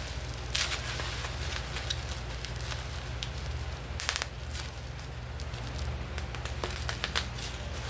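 Packaging being handled and opened: irregular crinkling and sharp crackles, loudest about half a second in, around four seconds and again near the end, over a steady low hum.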